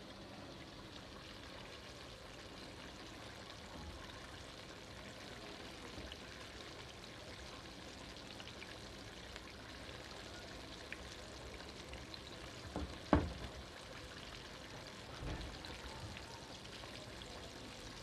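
Chicken pieces frying in hot oil, a faint steady sizzle, with a single knock about 13 seconds in.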